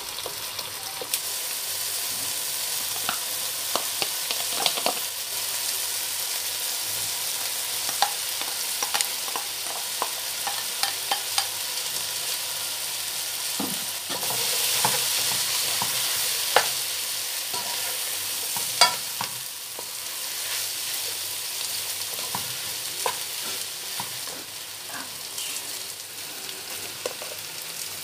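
Vegetables, sliced sausage and egg sizzling in a hot nonstick wok while a spatula stirs and scrapes them, with frequent sharp clicks and taps of the spatula against the pan. The sizzle grows louder for a few seconds about halfway through.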